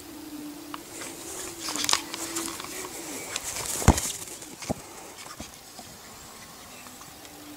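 A dove cooing in low, repeated coos for the first two and a half seconds. This gives way to a stretch of rustling, with one sharp knock about four seconds in and a smaller one just after.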